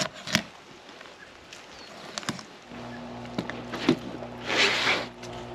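A knife cutting into a whole uku (green jobfish) being filleted on a plastic folding table: a few sharp clicks and taps, then a longer scraping swish near the end. A low steady hum comes in about halfway through.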